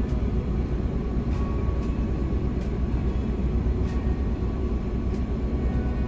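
Steady low rumble of a city bus's engine and road noise, heard inside the cabin of the moving bus.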